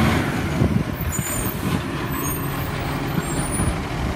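Side-loading recycling truck's engine running close by at the kerb, with brief faint high squeaks over it.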